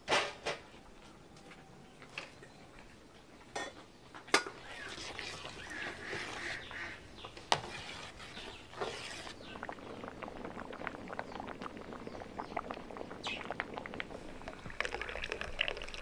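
Kitchen work with dishes and utensils: a few sharp clinks and knocks, a stretch of hiss in the middle, then a run of small light ticks and clatters that grows busier near the end.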